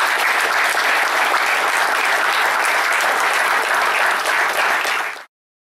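Audience applauding steadily, a dense patter of many hands clapping, which cuts off abruptly about five seconds in.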